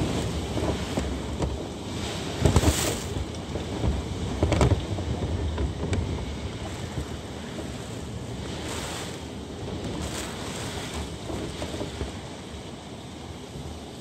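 Typhoon wind blowing in gusts. The strongest gusts come about two and a half and four and a half seconds in, and it eases somewhat after that.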